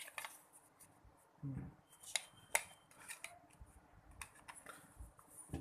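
Plastic back cover of a JioFi2 pocket Wi-Fi hotspot being fitted and pressed shut over the battery: a few sharp light clicks and faint handling rattle.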